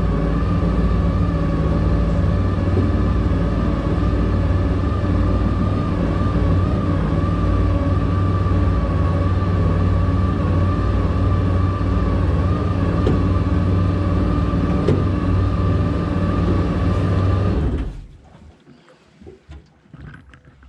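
Jet boat engine running at a steady speed, then cut off abruptly near the end, leaving only faint lapping and knocks.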